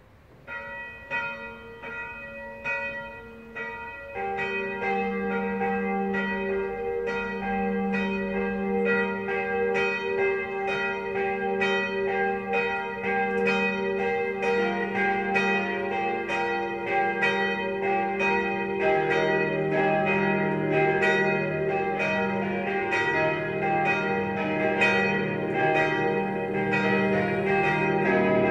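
Swinging church bells of a five-bell peal cast by Czudnochowsky of Erding in 1951–53, tuned B-flat, E-flat, F, G, B-flat, being rung up. A single small bell starts alone, and lower bells join one after another, a few seconds apart, until several ring together in a dense, overlapping peal.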